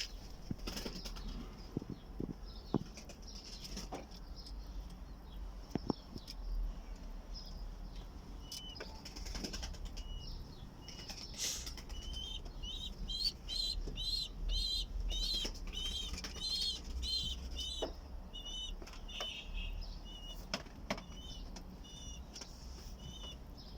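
Zubairi pigeons flapping their wings, with sharp wing claps and flutters throughout. From about halfway through, a bird chirps repeatedly in short high notes for several seconds.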